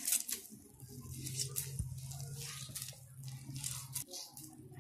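Sticky, syrup-soaked boondi squishing in irregular soft wet clicks as a hand squeezes it firmly into a laddu, over a faint steady low hum.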